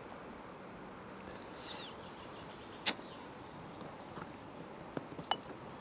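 A small bird singing short runs of quick, high, downward-slurred notes, repeated several times, over quiet outdoor background. A sharp click about three seconds in, and two lighter clicks near the end.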